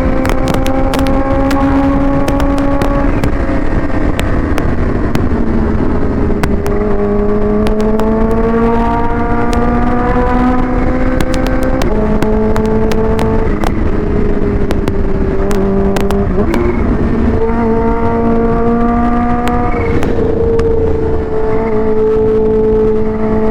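Supercharged Kawasaki Ninja H2 inline-four with a Vandemon exhaust running under way. Its note holds steady, climbs slowly, then jumps up or down several times as the revs change, with wind noise over the microphone.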